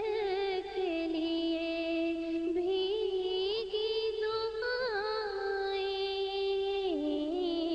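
A single voice singing an unaccompanied Urdu devotional poem (nazm), holding long drawn-out notes with ornamented turns and settling onto a lower held note near the end.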